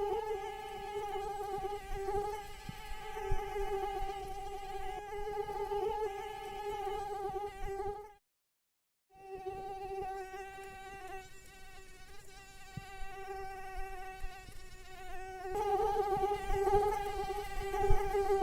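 Mosquito wings whining in a steady high buzz with a stack of overtones. It cuts out completely for about a second midway, then resumes and grows louder near the end.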